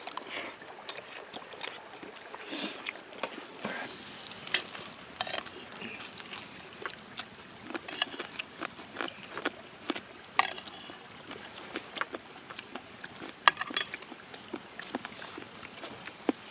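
Irregular clinks and clatters of cooking and eating utensils against dishes and pans, with many sharp clicks scattered throughout.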